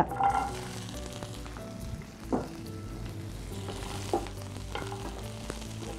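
Chopped gooseberries and green chillies sizzling in hot oil in a nonstick frying pan as they are stirred with a wooden spatula, which knocks against the pan a few times.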